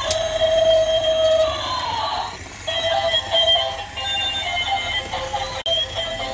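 Battery-powered toy robot elephant playing an electronic tune and sound effects from its small built-in speaker while it walks, with a falling tone between about one and two and a half seconds in.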